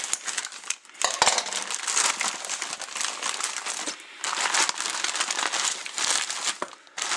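Plastic bubble-wrap packaging being handled and unwrapped: continuous crinkling and crackling in several long stretches, with brief pauses about a second in, near the middle and near the end.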